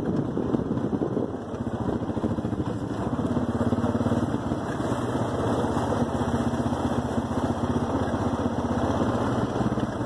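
Four-wheeler (ATV) engine running as the machine rides along, heard from the seat. The engine note grows a little louder and steadier about three seconds in.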